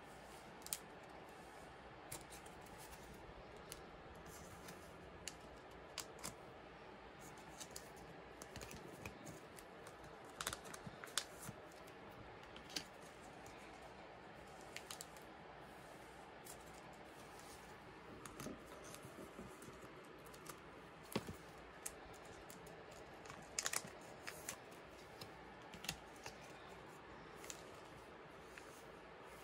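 Light, scattered clicks and taps of plastic-sleeved photocards being handled and slipped into a binder's clear plastic pocket pages, coming in irregular little clusters over a faint steady hiss.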